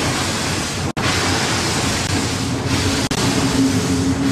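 Steam-hauled passenger train running, heard from a carriage window as the locomotive's steam blows past: a loud steady rushing noise. A low steady tone joins about halfway, and the sound cuts out for an instant about a second in and again near three seconds.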